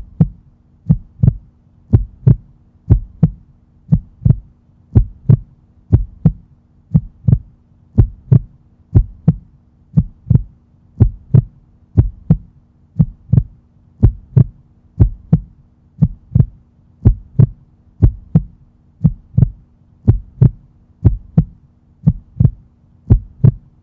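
Heartbeat sound effect: a steady lub-dub, each beat a pair of low thumps, at about one beat a second, over a faint steady hum.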